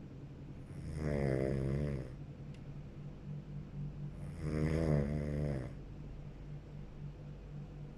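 A person snoring in their sleep: two snores about three and a half seconds apart, each lasting a little over a second, over a steady low hum.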